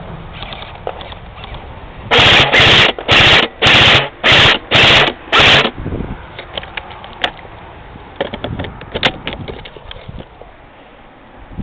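Airsoft gun firing in about seven short, very loud bursts of rapid automatic fire in quick succession, followed by scattered fainter snaps and clicks.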